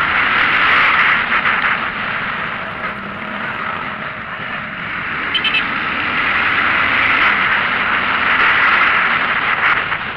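Steady rush of wind and road noise from a vehicle moving along a road, with no clear engine note. It swells louder near the start and again later, with a brief click about five seconds in.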